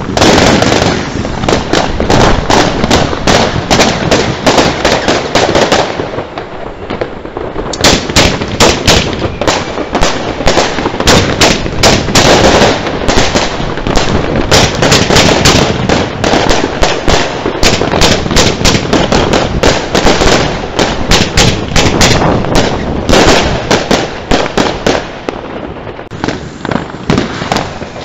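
Fireworks going off in rapid succession: a dense run of sharp bangs and crackling, easing briefly about six seconds in before picking up again.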